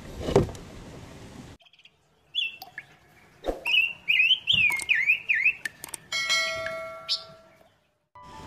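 Subscribe-button animation sound effects: after a moment of silence, clicks and a quick warbling electronic chirp, then a ringing bell-like chime that fades out. A sharp thump comes right at the start, before the cut.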